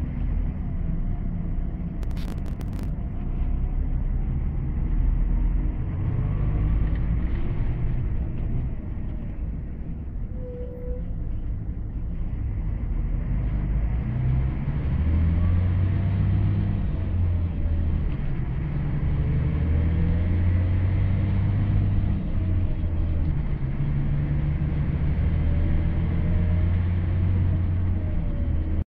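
Scania K124IB coach's rear-mounted six-cylinder diesel engine heard from inside the passenger cabin, running with a low rumble while its pitch rises and falls several times as the bus pulls away. There is a sharp click about two seconds in.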